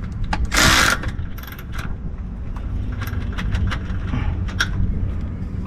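Cordless ratchet and socket working the bolts of a sway bar axle bracket: scattered metallic clicks and clinks, with a short hissing burst about half a second in.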